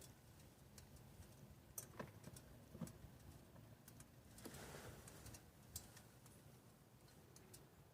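Faint, irregular ticks and clicks from a 2012 BMW 335i after a 5-mile drive, coming every half second to two seconds with a faint hiss between: the noise whose normality the owner questions.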